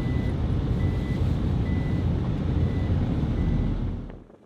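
Vehicle running and moving off with a loud low rumble, while a warning beeper gives a short high beep about once a second, five times. The sound stops about four seconds in.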